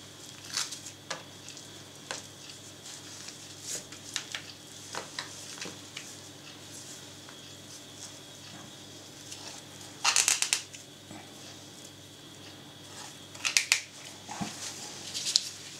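Linen twine being tied and trimmed at the end of a netted ham roll: small scattered clicks and rustles, with two short bursts of rapid crisp clicking, about ten seconds in and again three seconds later.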